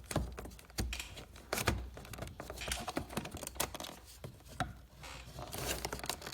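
Irregular light clicks and taps of hand tools and plastic trim being handled, with a brief rustle near the end.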